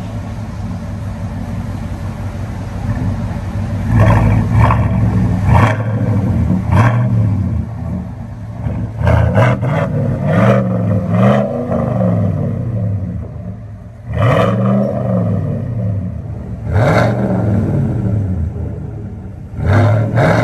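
2020 GMC Sierra 1500's 5.3-litre V8 running through a true dual exhaust with Tunnel Ram performance mufflers and quad tips. It idles with a deep rumble, then from about four seconds in it is revved again and again in short blips, each rising in pitch and dropping back to idle, some in quick clusters.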